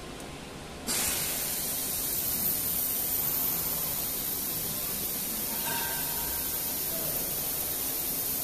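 Compressed air hissing steadily from the automatic tool-change spindle of a CNC router as it takes its first tool. The hiss switches on suddenly about a second in.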